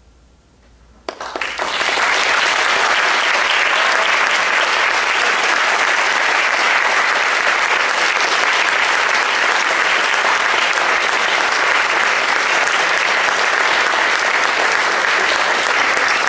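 About a second in, after near silence, a concert-hall audience breaks into applause, which keeps up steadily.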